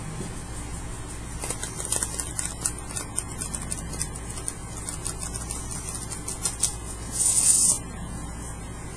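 Tarot cards being handled and shuffled: a run of light, irregular clicks, then a short, louder hissing riffle about seven seconds in.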